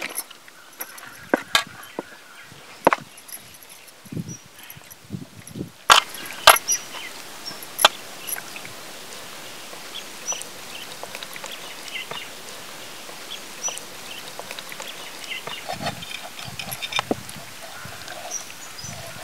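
Hands working green masala paste into whole raw chickens in a steel bowl, with soft handling thumps and several sharp clicks and knocks, the loudest about six seconds in. Birds chirp in the background.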